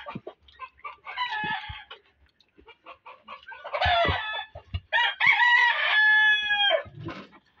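Rooster crowing: one crow about five seconds in that ends in a long held note, with shorter chicken calls before it.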